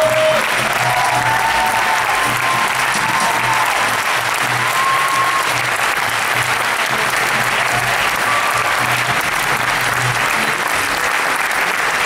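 Theatre audience applauding steadily after a song.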